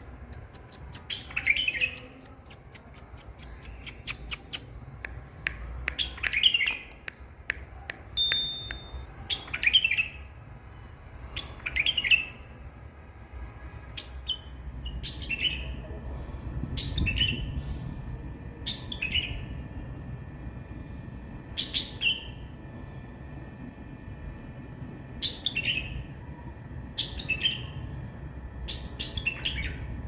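White-eared bulbul singing: short, clear phrases repeated every two to three seconds over a steady low rumble, with a few sharp clicks in the first several seconds.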